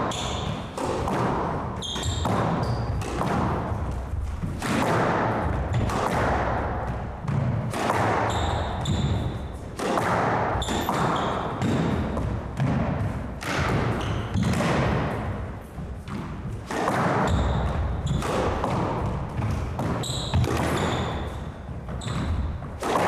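Squash rally: the rubber ball smacked by rackets and hitting the court walls again and again at irregular intervals, with short high squeaks of shoes on the hardwood floor.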